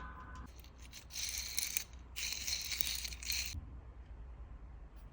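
Two spells of light metallic clicking and rattling, each a second or so long, from hand tools at work on the supercharger pulley bearing.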